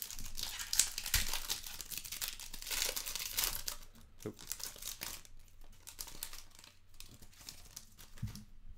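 A foil trading-card pack being torn open, its wrapper crinkling and crackling. The crinkling is loudest over the first few seconds, then goes on more softly as the wrapper is handled.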